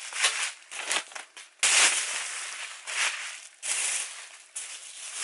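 Bubble wrap and a clear plastic bag crinkling and rustling in irregular bursts as a package is unwrapped. The loudest burst starts sharply about a second and a half in.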